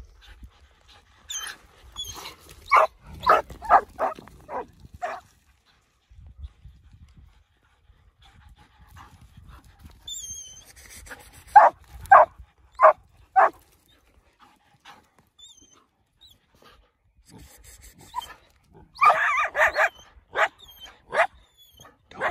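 Dogs barking in three bursts of about five sharp barks each: early on, in the middle, and near the end.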